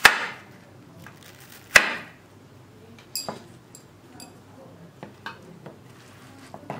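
Large kitchen knife chopping watermelon into cubes, the blade knocking down onto a wooden cutting board: two sharp knocks in the first two seconds, then several lighter knocks.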